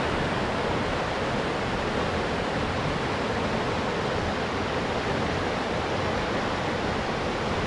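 Shallow mountain river rushing over boulders in rapids: a steady, even rush of white water.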